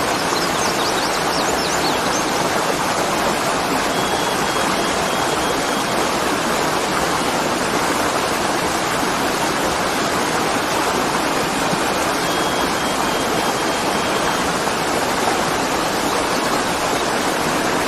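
Tall waterfall: water falling and crashing in a steady, loud, unbroken rush. A few faint high chirps sound about a second in.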